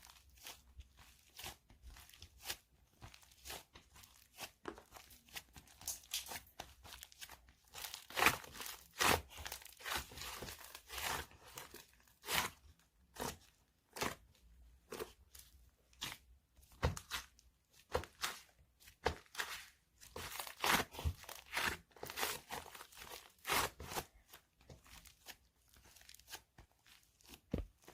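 Homemade clay slime being squeezed and pulled apart by hand: an irregular string of short crackles, pops and tearing sounds, busiest in the middle.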